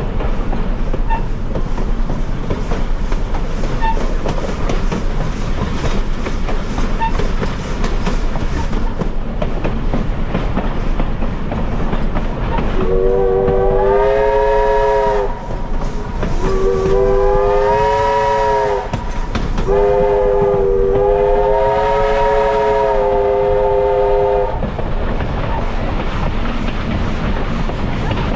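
Steam whistle of a 1924 Baldwin 2-6-6-2T Mallet locomotive blowing the grade-crossing signal, long, long, short, long, each blast sliding up in pitch as it opens. Under it, the steady rumble and clatter of the train rolling on the rails.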